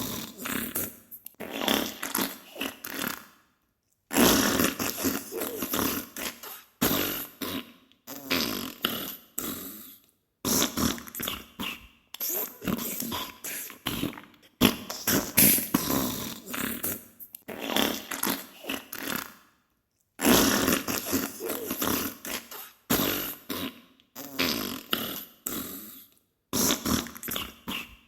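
Diarrhea sound effect: a run of sputtering fart sounds in bursts of one to three seconds, each fading out, with short pauses in between.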